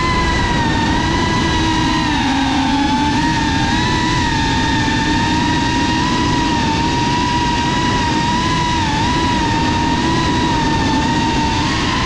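FPV quadcopter's electric motors and propellers whining steadily at a nearly constant pitch, wavering slightly with throttle, over a rush of prop and air noise.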